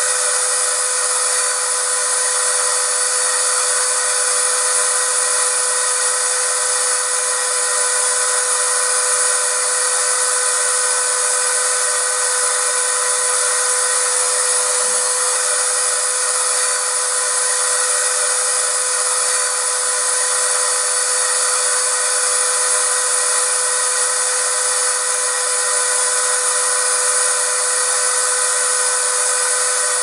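Vacuum cleaner running steadily: a constant rush of air with a steady motor whine, holding the same pitch and level.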